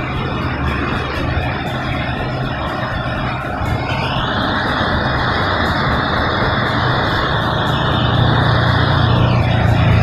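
Small high-speed table fan running, just fixed by a new regulator switch: a low motor hum under a steady rush of air from the spinning blades. The air noise grows louder about four seconds in and eases back near the end.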